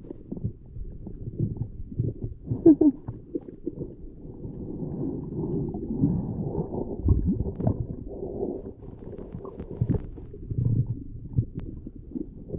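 Muffled underwater noise from a submerged GoPro Hero 8's microphone: low gurgling water movement with irregular knocks and bumps, and a brief warbling gurgle about three seconds in.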